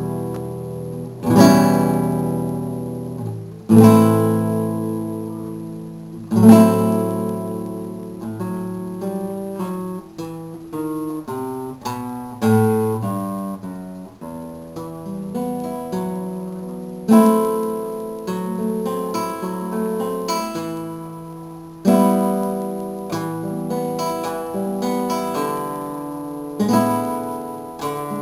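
Background music on solo acoustic guitar: loud strummed chords that ring and fade, with picked melody notes between them.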